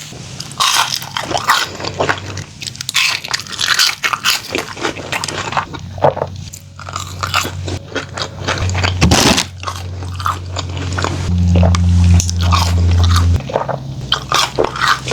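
Close-miked biting and chewing of fast food: a run of crunchy bites and wet chews with no talking.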